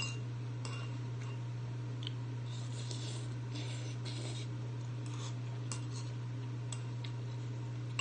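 Metal chopsticks clicking lightly against a ceramic bowl a few times, with noodles slurped in the middle stretch, over a steady low hum.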